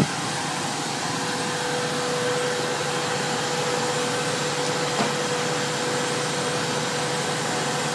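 Fire engine running steadily beside the fire, a constant whir with one steady tone through it, likely its pump running.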